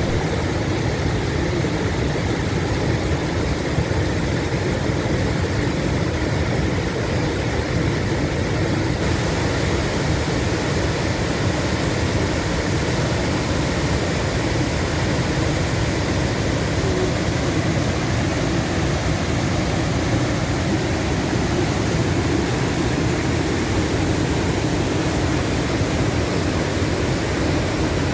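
Waterfall in spring flood, the river swollen with meltwater: a steady, unbroken roar of raging water.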